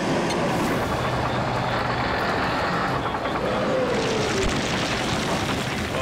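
Caterpillar D11R bulldozer's diesel engine running steadily, with a short falling whine about three and a half seconds in and a harsher, hissier noise from about four seconds on.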